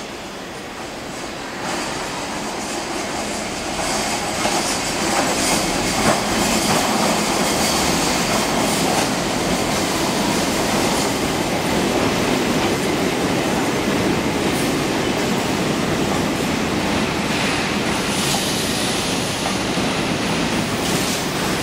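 Chennai MRTS electric suburban train approaching, growing louder over the first few seconds. Its coaches then run close past with a steady loud rumble of wheels on rails and scattered clacks.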